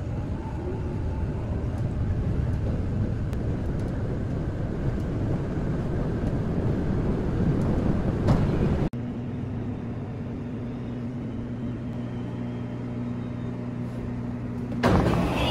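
Vehicle running noise, a steady low rumble. About nine seconds in it cuts abruptly to a steadier hum with a few fixed low tones, and a louder sound comes in near the end.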